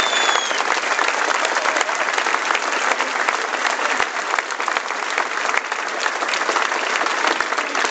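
Crowd applauding: many hands clapping steadily.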